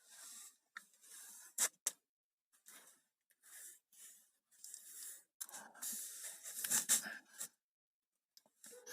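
Metal gearbox parts being handled by hand: short scrapes and rustles, a sharp click a little over a second and a half in, and a longer stretch of scraping in the second half.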